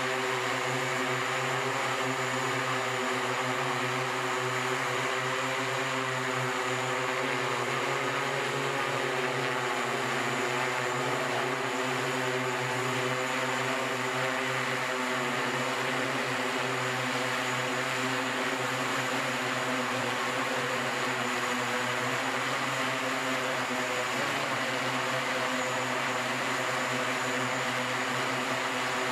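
SkyDrive SD-03 eVTOL hovering, its electric propellers giving a steady hum of several tones over a rushing hiss. The pitch shifts slightly about three-quarters of the way through.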